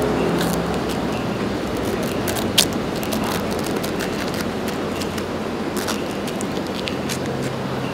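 Steady street traffic noise, with a few sharp clicks from handling a roasted suckling pig on a wooden board. The loudest click comes about two and a half seconds in, and a low steady hum joins near the end.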